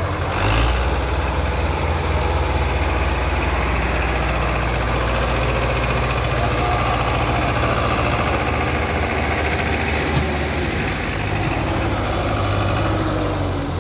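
Belarus tractor's diesel engine running steadily under load while pulling a heavily loaded trolley out of where it was stuck, a low engine note that steps up about half a second in and then holds.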